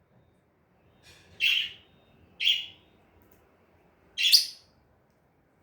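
Pet lovebird giving three short, high-pitched chirps, the last the loudest.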